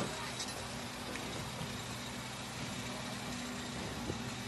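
Engine of a truck-mounted crane idling steadily, with a single small click about four seconds in.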